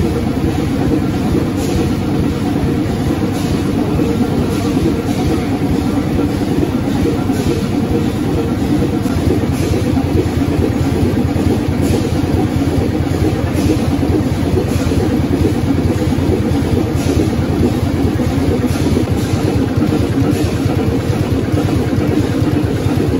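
Large stationary engine running steadily, with a regular beat.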